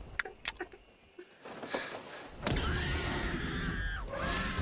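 Film soundtrack of the jeep-attack scene: a few sharp clicks, a brief lull, then, about halfway through, a loud crash and noise with children screaming over it.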